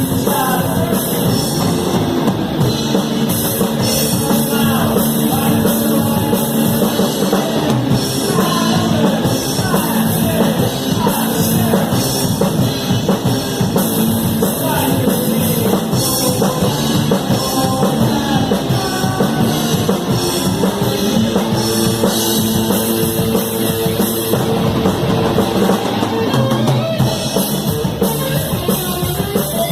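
Rock band playing live, heard from the drummer's seat: the drum kit is prominent, with the rest of the band playing along.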